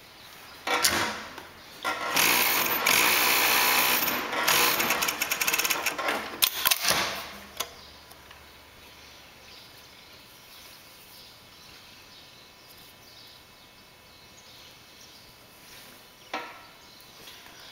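Brother FD4-B277 industrial three-needle coverstitch machine running at speed in a loud, rapid mechanical clatter for about five seconds, starting about two seconds in after a short burst, then stopping. A low background hum follows, with one brief burst near the end.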